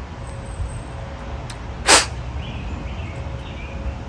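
A single short, sharp puff of breath blown through a small pressure-washer nozzle tip about two seconds in, checking that the orifice just cleared of debris with a needle is open. A steady low background rumble and a few faint bird chirps lie underneath.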